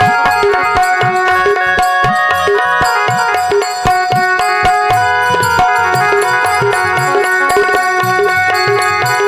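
Marathi devotional folk music played on instruments: steady held melody notes over hand-drum strokes in an even rhythm.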